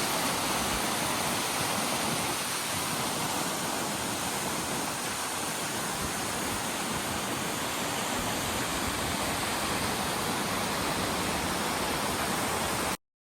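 Steady rushing of a waterfall, an even roar of falling water, cutting off abruptly near the end.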